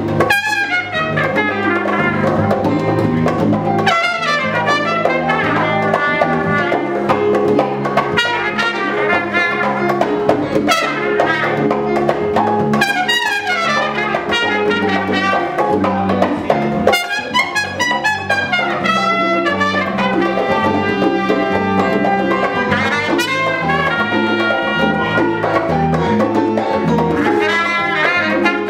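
Live salsa band with the trumpet leading, playing quick runs of notes up and down, over congas, bongos, drum kit, piano and bass guitar.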